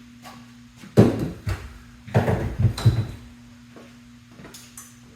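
Clunks and rattles of metal motorcycle parts being handled and set down, one about a second in and a cluster between two and three seconds in, over a steady low hum.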